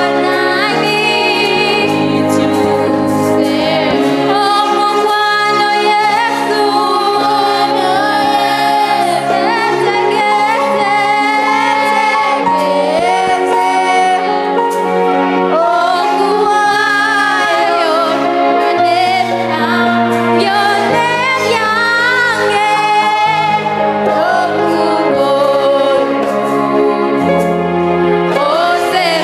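A song with a high singing voice carrying the melody over instrumental accompaniment, whose sustained bass notes change every second or two.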